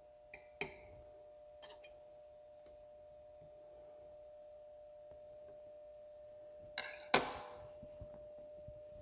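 Knife and fork clicking lightly against a metal broiler pan while a ground-beef mock steak is cut, with a louder clatter of cutlery about seven seconds in. A faint steady hum runs underneath.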